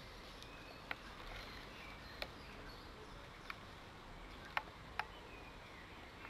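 Quiet outdoor background with faint high chirps, broken by five sharp clicks spread over a few seconds.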